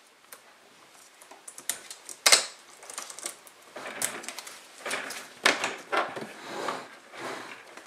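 Handling of a small cable padlock and key: irregular clicks and light rattles, with sharper knocks about two seconds in and about five and a half seconds in as hands come down on a plastic ammo case.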